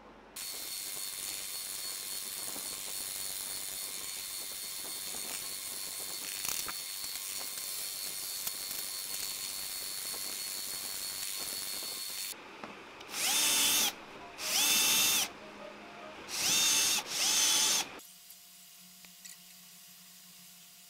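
A drill press boring through a steel bar, with a steady run and a high whine, for about twelve seconds. After a pause it runs in four short bursts, each spinning up and winding down, and then it falls quiet apart from a faint hum.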